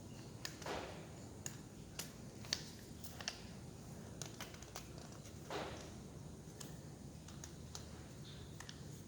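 Scattered light clicks and taps of small plastic and metal parts being handled during the teardown of a 12 V cordless drill, with two brief scraping sounds, one under a second in and one about five and a half seconds in.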